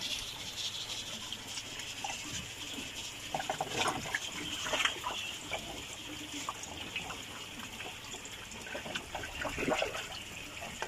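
Water pouring steadily from a pump's return pipe into an aquaponics fish tank, with irregular splashes and slurps as fish take feed at the surface.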